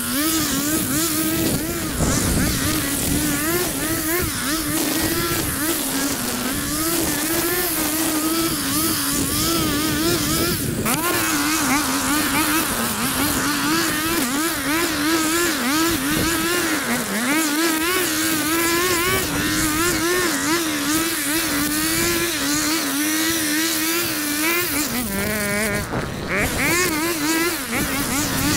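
A small engine on lawn equipment runs at high speed without a break. Its pitch keeps wavering as the load changes, and it dips briefly near the end before picking back up. A steady hiss runs under the engine.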